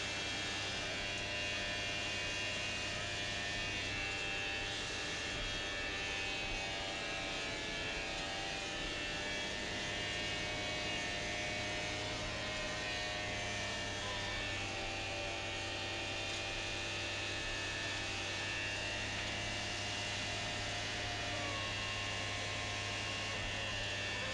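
CV Series hydrovac excavator truck running: a steady, unbroken hum with several higher steady tones over it.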